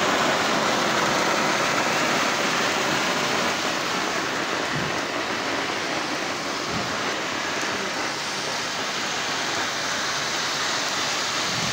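Ground spark fountains spraying, giving a steady rain-like hiss that eases off slightly over the seconds.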